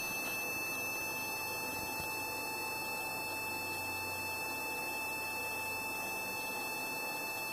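Continuous steady electronic tone from a Gbox 15AB veterinary surgical laser while it fires, over a steady hiss.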